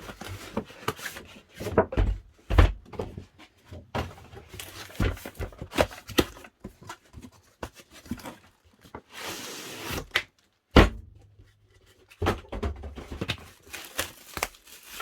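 Packaging being handled and opened: a string of knocks and thuds as the box is lifted and turned, with a short rustling slide about nine seconds in and a sharper thud just before eleven seconds.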